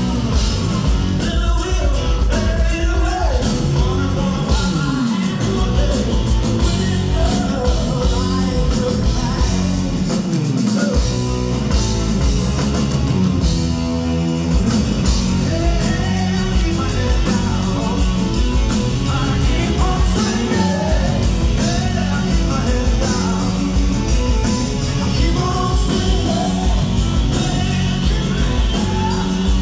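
Hard-rock band playing live: a male singer over electric guitar and drums, loud and continuous.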